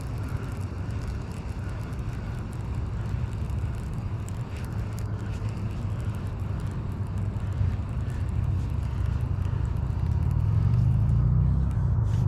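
Steady low rumble of road traffic, with one vehicle's engine rising in pitch and growing louder near the end.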